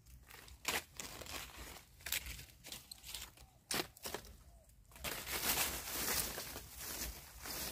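Dry fallen leaves crackling and rustling as hands dig through the leaf litter for mushrooms. A few sharp crunches come in the first four seconds, then a longer, denser rustle from about five seconds in as leaves are swept aside.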